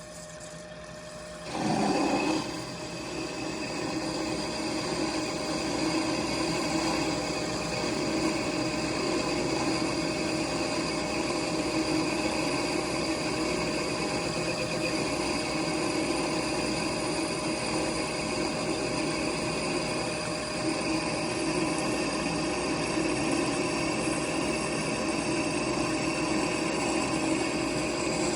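Machine tool running steadily with a constant whine, after a brief loud burst about a second and a half in as it gets going.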